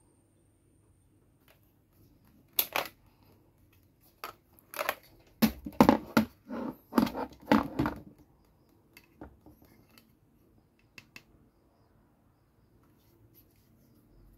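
Hard plastic clicks and snaps as the front plate of a bootleg CSM Amazons Driver toy belt is pulled off and handled: two sharp clicks about two and a half seconds in, then a dense run of clicks and knocks from about four to eight seconds, then a few faint ticks.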